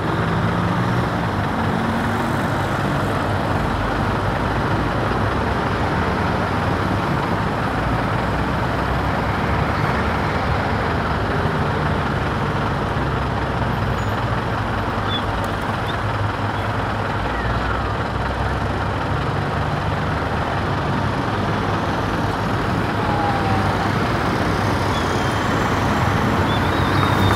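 Steady road traffic noise: the low hum of idling and passing car, bus and motorbike engines with tyre noise.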